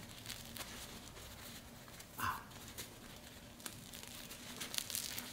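Faint crackling of a crusty homemade Vietnamese baguette being pulled and torn apart by hand, with a few scattered small cracks of the crust.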